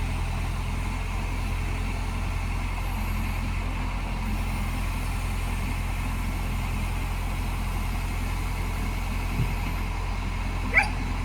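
Diesel engine of heavy machinery idling steadily, with a brief sharp sound near the end.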